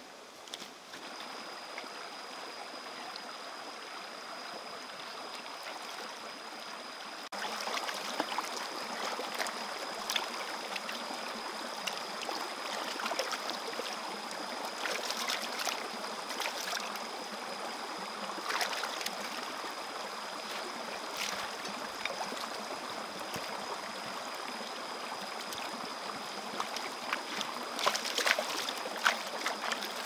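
Shallow stream running over rocks, louder from about seven seconds in, with short splashes as hands rinse in the water and wash eggplants. A thin steady high tone sits under it.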